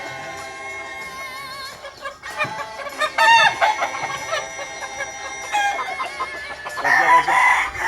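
Young gamefowl cockerels crowing, one loud crow about three seconds in and another near the end, with faint background music.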